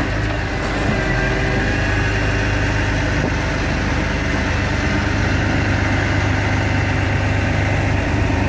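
Heavy diesel engine idling steadily with a low, even hum, most likely the grab lorry's engine running to power its hydraulic crane and grab.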